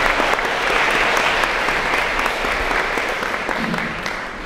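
Audience applauding at the end of a lecture, many hands clapping at once, the clapping thinning out near the end.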